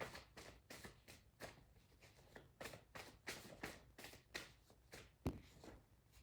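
Tarot cards being shuffled by hand: a quiet, irregular string of soft snaps and taps, with one sharper knock about five seconds in.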